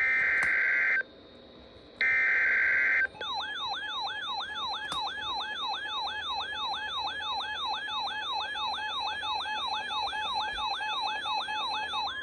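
Emergency Alert System SAME header over NOAA Weather Radio: the last two one-second screeching data bursts of the digital header, a second apart, then a warbling alert siren sweeping up and down about three times a second, signalling a new severe thunderstorm warning.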